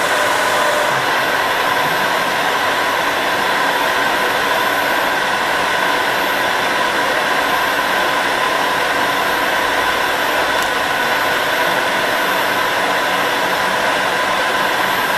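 Steady whirring hiss with a constant high whine, from electric workshop machinery running. It keeps an even level throughout.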